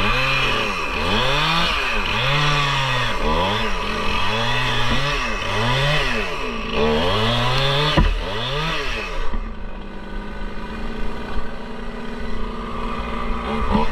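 Stihl chainsaw bucking an oak log, its engine speed rising and falling about once a second as it cuts. There is a sharp knock about eight seconds in. The saw then settles to a steady idle for a few seconds before it revs up again at the end.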